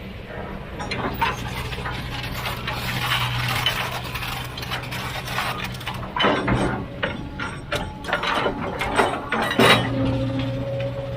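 A heavy machine's diesel engine running steadily under many sharp clanks and knocks of metal and rock, denser and louder in the second half.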